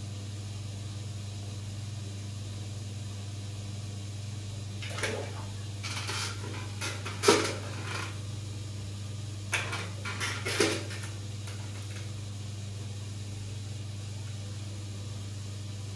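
Steady low hum of aquarium pump or filter equipment. Between about five and eleven seconds in there is a scattering of short knocks and clatters; the loudest comes a little past seven seconds.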